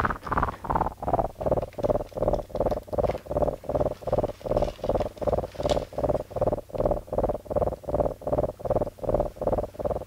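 Pulsing sci-fi sound effect, about three even beats a second, its pitch sliding down over the first two seconds and then holding steady.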